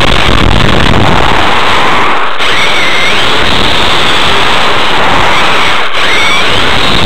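Onboard sound of a Kyosho Inferno GT RC car running on a Novak HV Pro 5.5 brushless motor: loud rushing tyre and wind noise on the car-mounted microphone, with the motor's high whine climbing in pitch three times as the car speeds up. Two brief dips break the noise, about two and six seconds in.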